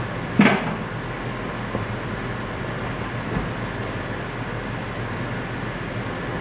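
Kitchen sounds: one sharp knock about half a second in, then a steady even rush with a low hum underneath.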